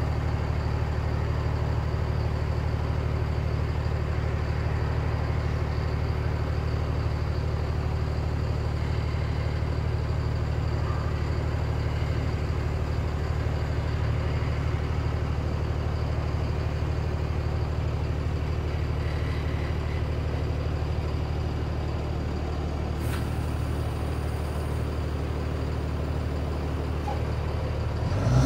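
Cummins ISB 5.9-litre inline-six turbodiesel of a Thomas school bus idling steadily, heard from inside the bus at the front.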